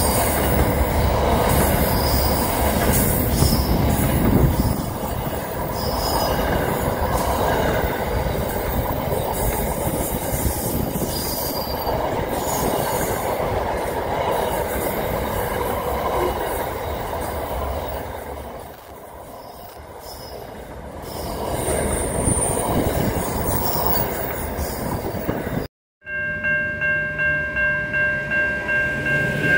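Double-stack container freight train rolling steadily past at speed: a continuous rumble of wheels on rail with brief high squeals, dipping a little about two-thirds of the way through. After a sudden cut near the end, a steady high-pitched ringing pulses about three times a second as an Adelaide Metro electric train approaches.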